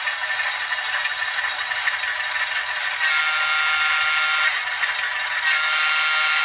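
Model-train sound decoder in an HO-scale ALCO S-4 switcher playing diesel engine sound through its small speaker: thin and rattly, with no bass. A steady horn blows twice, about three seconds in and again about five and a half seconds in, each blast lasting about a second and a half.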